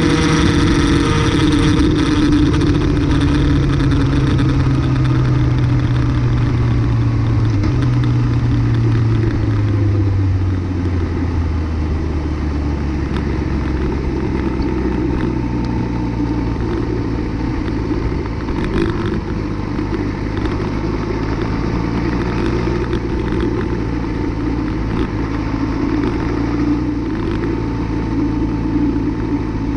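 Yamaha R6 inline-four engine heard from onboard, its revs falling steadily over the first ten seconds as the bike slows in top gear, then running at low revs at a slow, steady pace in fifth gear, over a steady rush of wind.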